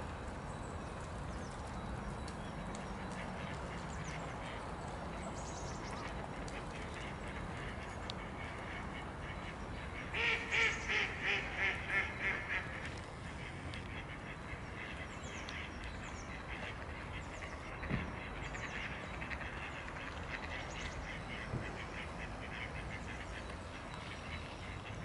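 A duck gives a quick run of about seven quacks, the first loudest and each following one a little fainter. Faint high chirps and a steady outdoor hiss are heard throughout.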